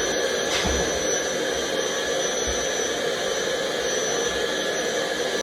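Steady whirring machine noise with a thin, high, constant whine, a faint knock about half a second in, and a sudden cut-off at the end.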